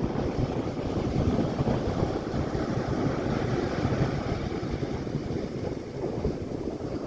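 Rough storm surf breaking and washing up the beach, mixed with wind buffeting the microphone.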